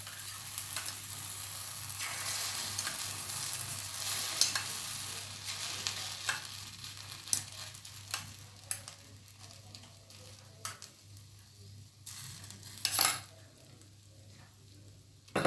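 A prepared mixture frying in hot sunflower oil in a pan on a low flame, sizzling strongly at first and then dying down. A few light utensil clicks fall in the second half, with a short louder knock near the end.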